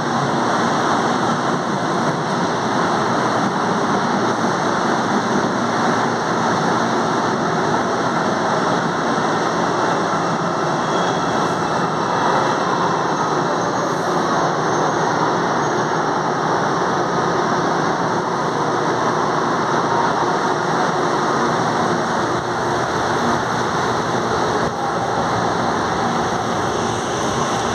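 CPTM electric commuter trains moving along a station platform: a steady, loud rumble of steel wheels on the rails and the running gear, with no pauses.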